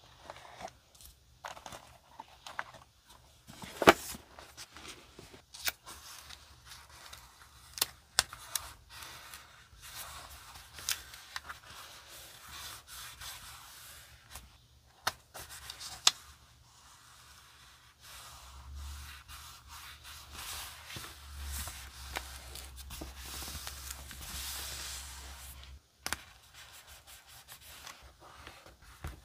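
Paper scraps being handled close up: crinkling and sharp taps as pieces are pulled from a packed box and laid on a journal page. From about two-thirds through, a longer stretch of steady rubbing as paper is smoothed down.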